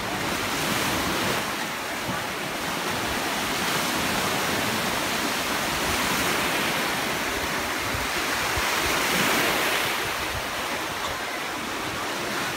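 Sea waves washing ashore, the noise swelling and easing every few seconds, with wind rumbling on the microphone.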